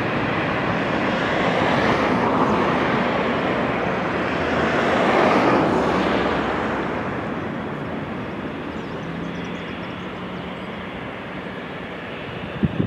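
Jet airliner's twin turbofans running at low taxi power: a steady rushing jet noise that swells about five seconds in and then slowly fades. A short knock near the end.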